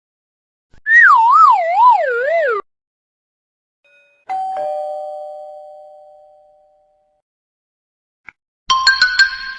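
A string of cartoon sound effects: a whistle that wobbles up and down about four times while falling in pitch, then a two-note ding-dong chime like a doorbell that slowly fades, and near the end a jangly burst of bright ringing tones.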